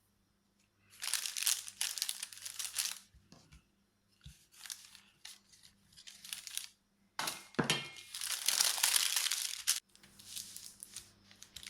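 A thin wrapping sheet crinkling as it is handled and folded by hand around a slab of cashew dough. The crinkling comes in several bursts, the longest near the end.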